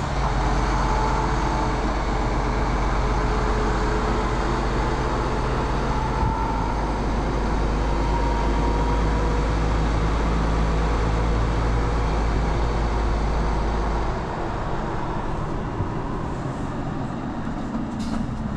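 MAN TGX 18.470 truck's diesel engine running under way, a steady low drone over tyre and road noise. The deep drone drops away about fourteen seconds in.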